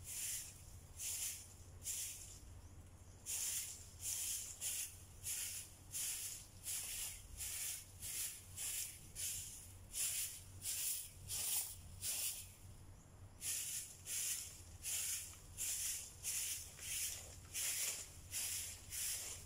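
A stiff stick broom sweeping bare earth and leaf litter in steady, scratchy strokes, about one and a half a second, with a short pause about three seconds in and again about thirteen seconds in.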